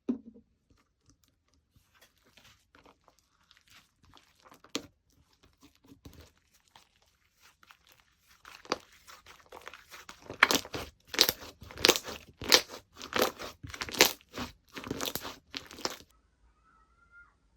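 Slime being handled and squeezed: faint crackles and clicks at first, then from about ten seconds a run of loud crunchy squishes about twice a second, which stops near sixteen seconds.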